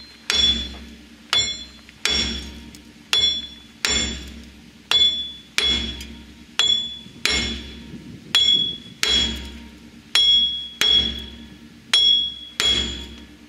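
A big hammer pounding a rusted-in Dana 30 front hub bearing assembly to drive it out of the steering knuckle. The blows come steadily, about one a second, each with a bright metallic ring.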